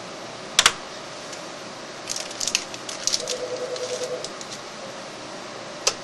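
Memory sticks being handled and pressed into the memory slots of an HP ProLiant DL380 G5 server, the slot latches clicking as a module locks in. There is a sharp double click about half a second in, a cluster of lighter clicks and handling noise around two to three seconds, and a single click near the end.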